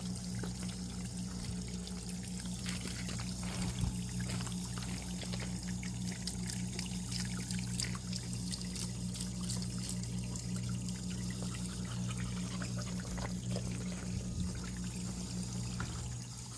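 Water running from an outdoor tap, pouring and trickling steadily with small splashing ticks. A low steady hum under it drops away near the end.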